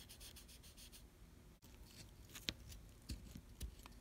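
Faint scratching as a probe tip is worked over the pins of a small circuit board, with a few light clicks in the second half as the board is handled.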